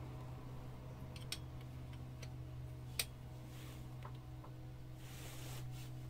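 A hand tool clicking against the manual gearbox's oil plug as it is worked loose by hand: about six light, separate metallic ticks, the loudest about three seconds in, over a steady low hum.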